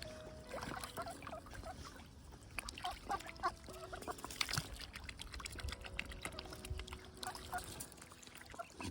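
A swan and ducks feeding in shallow water: bills dabbling and pecking with many quick clicks and small splashes, and a few soft murmuring calls.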